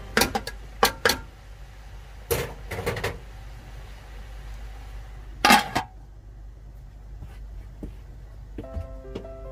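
A metal spoon and ladle clanking and scraping against a metal pot as cabbage is tossed, in a few short clatters. About five and a half seconds in comes the loudest clang, with a brief ring, as the metal lid is set on the pot.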